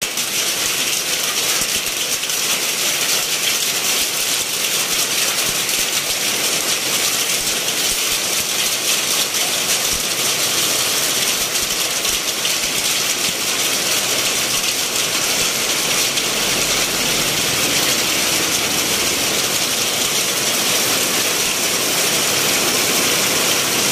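Hailstorm: hailstones and heavy rain falling hard, a dense steady hiss full of small rattling ticks.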